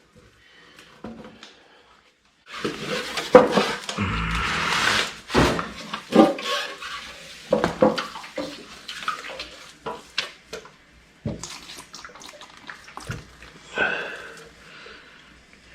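Epoxy primer and activator being poured and handled in plastic mixing and paint cups. A stretch of liquid pouring a few seconds in is followed by scattered clinks and knocks of the containers.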